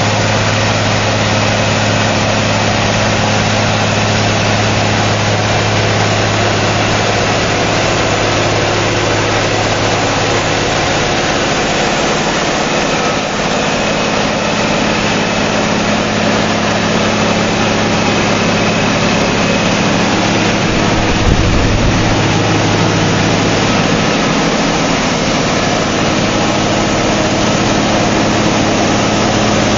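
Ingersoll-Rand DM45 crawler blast hole drill running: its Cummins N14 diesel and air compressor give a steady low hum under a dense hiss of air as compressed air blows dust out around the drill hole. A brief low thump comes about two-thirds of the way through.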